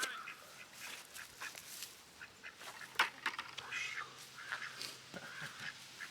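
Farmyard waterfowl calling: a flock giving many short, repeated calls, with a sharp click about three seconds in.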